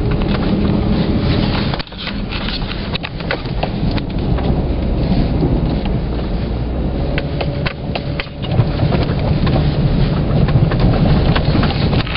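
Hyundai Santa Fe driving through deep snow: a steady low rumble of the vehicle and tyres, with many sharp knocks and crunches as it pushes through the snow and bumps over the trail.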